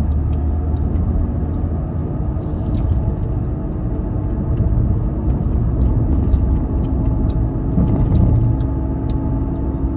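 Car in motion heard from inside the cabin: a steady engine and road rumble, with faint short clicks scattered through it.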